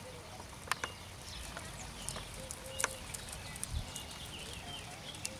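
Outdoor ambience of birds chirping and calling, with a few sharp clicks.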